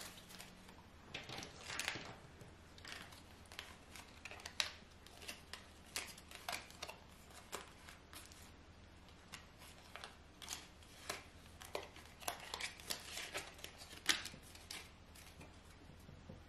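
A deck of oracle cards being shuffled and handled by hand: faint, irregular clicks and flicks of the cards.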